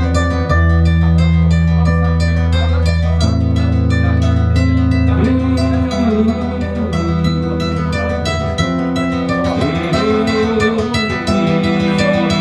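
Solo acoustic guitar played fingerstyle: a fast, flowing run of plucked notes over held bass notes.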